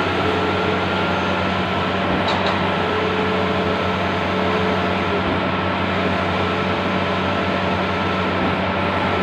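Large-format outdoor banner printing machine running, a steady mechanical hum and whir.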